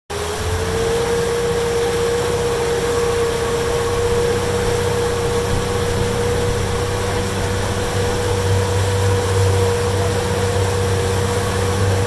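Boat motor running steadily. Its pitch rises slightly in the first half second and then holds, over a low hum.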